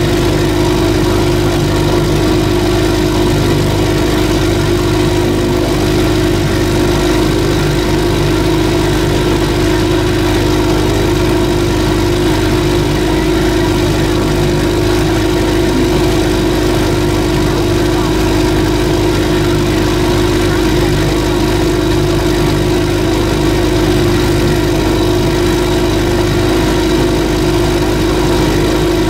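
An engine on board the boat idles with a steady, unchanging hum.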